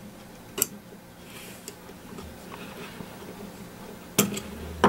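Small metallic clicks of forceps and the sear and pin against a Ruger Mark IV pistol's frame as the sear is fitted: a light click about half a second in, then two sharper clicks near the end.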